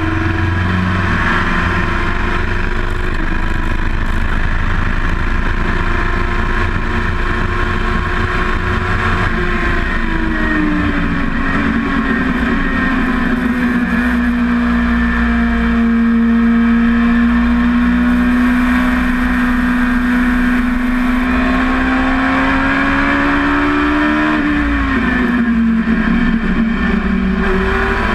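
Dwarf race car's motorcycle engine running hard under load, heard from inside the open cockpit on a road course. Its pitch slides down about ten seconds in and holds steady for a long stretch, then drops again near the end before climbing once more.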